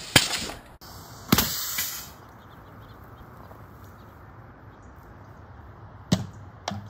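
An air hose coupler snaps onto the compressor with a short hiss of air, then a little over a second in a sudden loud rush as the water-filled soda bottle rocket blasts off its launcher, fading within about half a second. Two short sharp clicks come near the end.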